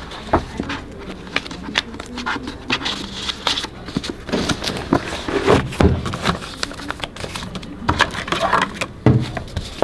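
Pages of a ring binder being turned and handled: paper rustling with a run of short sharp clicks and knocks.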